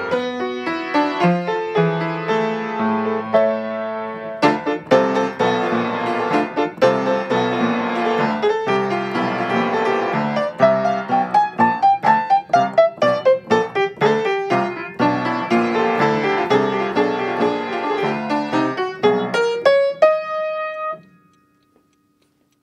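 Solo piano playing a fast classical-style piece with rapid runs, one climbing and then falling back in the middle. It ends on a held note that dies away near the end.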